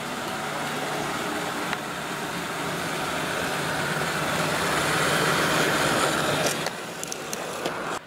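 Robot vacuum cleaner running, a steady motor-and-brush whir over a low hum. It grows louder toward the middle, then drops off, with a few sharp clicks near the end.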